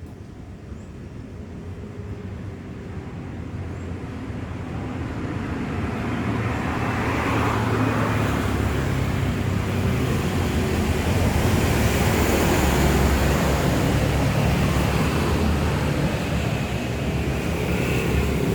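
Road traffic passing close by: engine rumble and tyre noise that swell louder over the first several seconds and then stay loud and steady.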